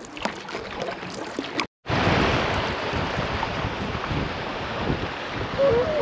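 Light canoe paddle strokes and knocks on calm river water, then, after a sudden dropout, a steady rush of river water running over a shallow riffle, heard close to the surface. A held tone starts near the end.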